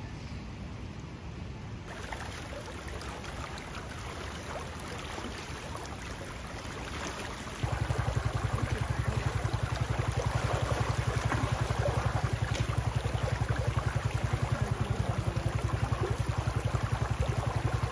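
Shallow mountain stream rushing over stones, a steady hiss of water. A little past the middle a loud low rumble with a rapid flutter joins it and runs on.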